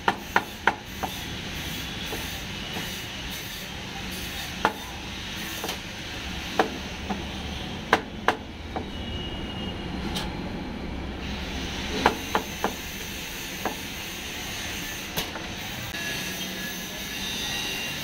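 Kitchen knife chopping on a cutting board through grilled soya chaap, capsicum and onion: sharp knocks at irregular intervals, some in quick runs of two or three, over a steady background hiss and rumble.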